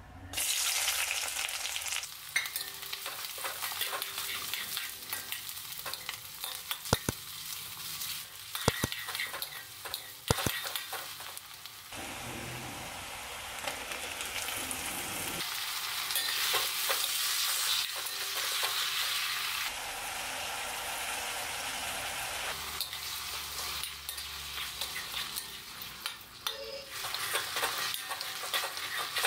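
Sliced shallots hitting hot oil in a steel kadai and sizzling, with a few sharp metal taps and scrapes of a spatula stirring them. Diced tomatoes then go in and the frying sizzle carries on under more stirring.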